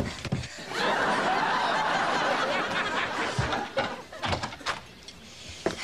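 Sitcom studio audience laughing, swelling about a second in and dying away after a few seconds, with a few sharp knocks as it fades.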